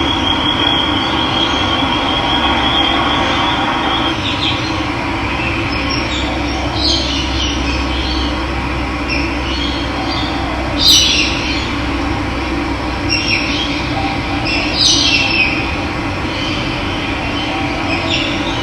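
Steady rush of running water with wild birds calling over it: a fast high trill in the first few seconds, then short chirps every couple of seconds, the loudest about eleven seconds in.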